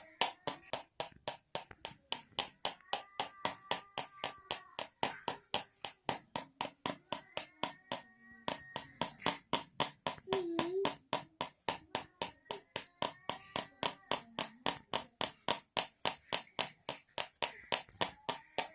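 Homemade rattle of small tins shaken in a steady rhythm, about five sharp metallic clicks a second, with a brief pause about eight seconds in.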